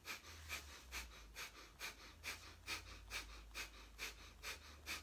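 Breath of fire: a person breathing rapidly through the nose with the mouth closed, the belly pumping out short, forceful exhales at an even pace of about two a second. The breaths are faint.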